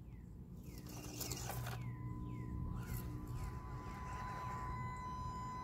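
A 1/24-scale RC crawler's small electric motor whining at a steady pitch as it crawls, starting about two seconds in, over a low rumble. Birds chirp repeatedly in short falling notes.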